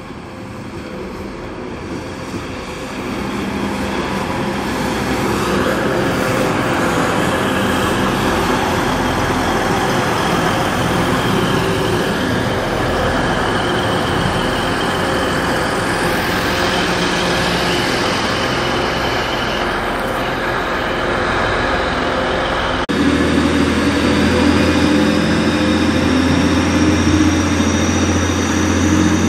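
Diesel multiple unit running into the station and past the platform, its engine and wheels growing louder over the first few seconds. About 23 seconds in it cuts to another diesel unit's engine under the station canopy: a deep steady drone with a slowly rising whine.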